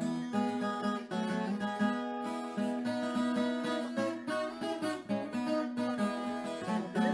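Background music: an acoustic guitar playing a steady run of plucked notes.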